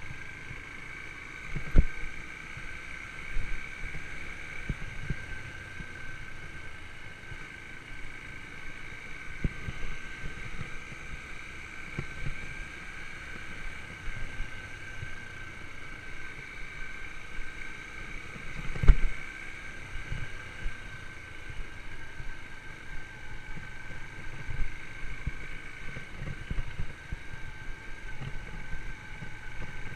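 Yamaha YBR125 single-cylinder four-stroke engine running at a steady pitch on the move. Occasional knocks punctuate it, the loudest about 2 s and 19 s in.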